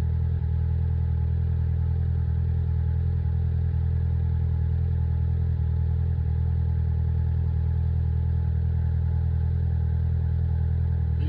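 Polaris Slingshot's four-cylinder engine idling steadily with a deep, even hum.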